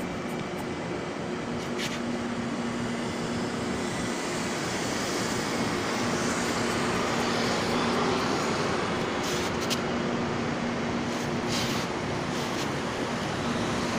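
Steady road traffic noise from passing vehicles, with a low hum that drops out for a couple of seconds about four seconds in.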